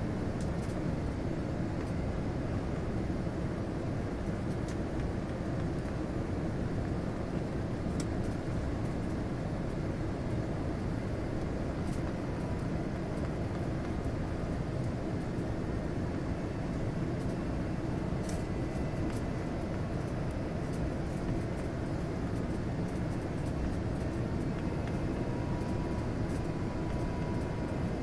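Steady rumble of engine and airflow noise inside an airliner cabin on final approach, with a few faint clicks.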